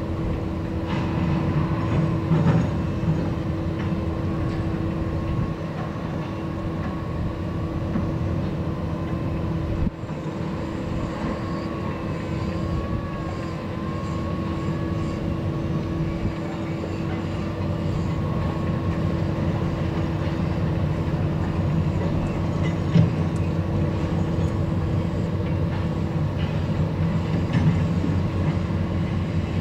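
Steady low drone of a large engine running, with a constant hum over it.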